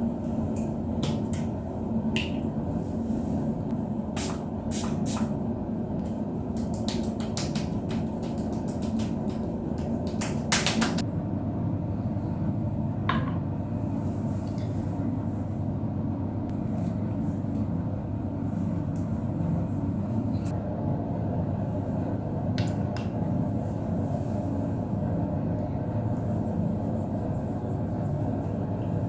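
Bathtub filling from the tap, a steady rushing of water. In the first half a scatter of sharp clicks and clinks sounds over it, with a few more later.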